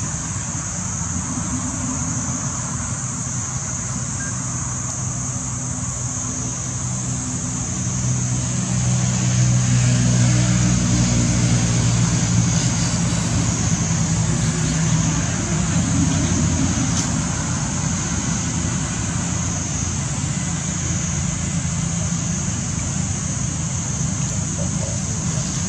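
Low engine hum from a motor vehicle, growing louder about eight seconds in and easing off again after about fifteen, over a steady high-pitched drone.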